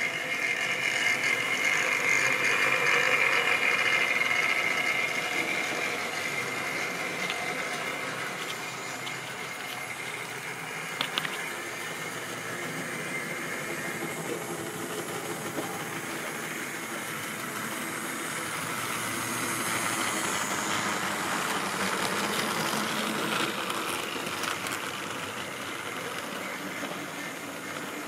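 Model railway train running on the track: the small electric motor's whine and the wheels clicking and rumbling over the rail joints as a rake of model tank wagons rolls past. It is louder in the first few seconds and again about 20 seconds in, with a few sharper clicks about 11 seconds in.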